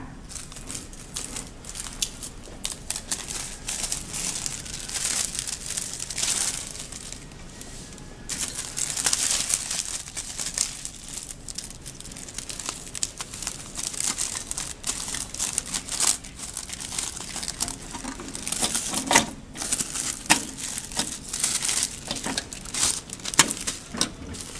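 Thin plastic laminating film crinkling and rustling as it is handled and threaded over the rollers of a hot laminating machine, with a few sharper clicks.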